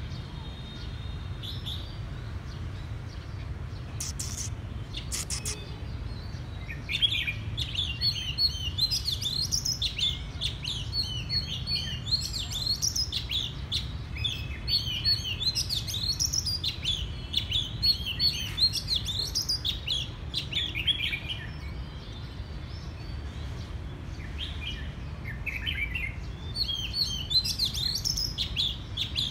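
Oriental magpie-robin singing a rapid, varied song of whistles and chirps. The song starts about a quarter of the way in, pauses briefly and picks up again near the end, over a steady low rumble.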